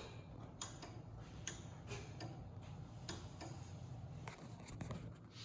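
Faint, irregular clicks and taps, about one or two a second, over a low steady hum.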